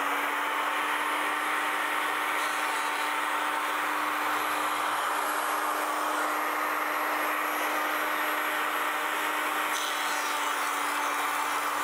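Handheld electric power planer running with a steady whine, its cutter shaving wood as it is pushed along a wooden paddle blank to rough-shape the blade.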